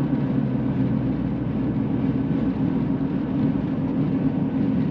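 Steady engine and tyre noise of a vehicle driving at highway speed, heard from inside the cabin as an even low hum.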